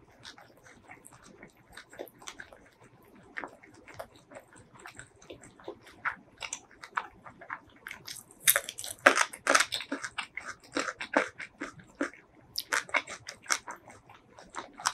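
Close-miked eating: soft chewing and mouth clicks, then about eight and a half seconds in a run of loud, crisp crunches as a raw green stick is bitten and chewed, with more crunching near the end.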